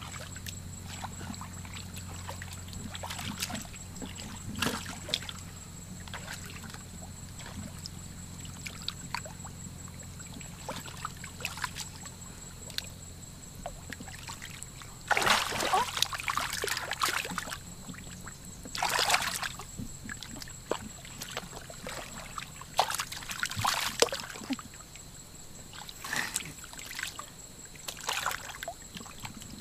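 Hands splashing and sloshing in shallow muddy water in irregular bursts while groping for fish in the mud, loudest a little past halfway and again near the end.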